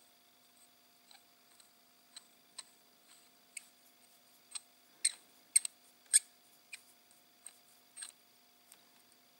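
Hand pin vise drilling a small hole in a plastic model radial engine: a string of small, irregular clicks and ticks as the tool is twisted in the fingers, a few louder ones near the middle.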